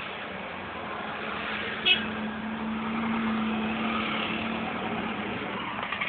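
Street traffic: vehicle engines and road noise, with a steady engine hum through the middle and a brief sharp high-pitched sound about two seconds in.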